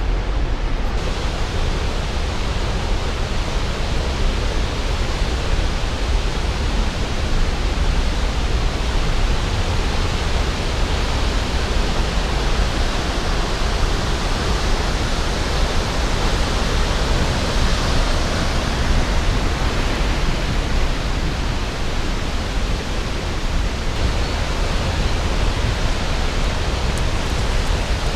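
Waterfall rushing: a loud, steady, even hiss with a strong low rumble.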